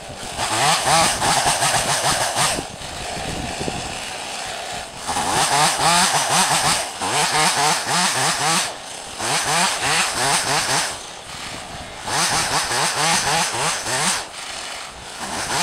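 Stihl MS 180 C two-stroke chainsaw revving up to full throttle for cuts lasting two to three seconds each, dropping back to a lower idle between them, about five times.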